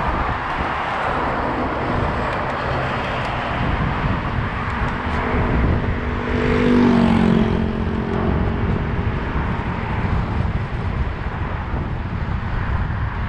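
Steady rushing wind and road noise from riding a bicycle, with a motor vehicle passing close by: its engine hum swells to a peak about seven seconds in, then fades.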